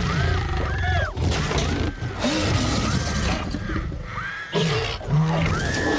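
Film sound mix of a Tyrannosaurus attacking a car: a child screaming again and again over a low rumbling dinosaur growl, with a steady rain hiss and a few sharp crashes of breaking glass or metal.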